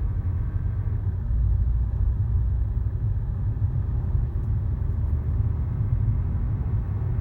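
Steady low rumble of a Jaguar XJ heard from inside the car, with no distinct squeak standing out.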